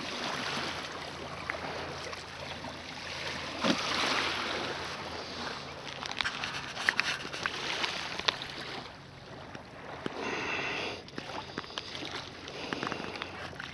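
Kayak paddles dipping and splashing in calm shallow water, with scattered sharp clicks over a steady hiss. A short buzzy sound lasts about a second, around ten seconds in.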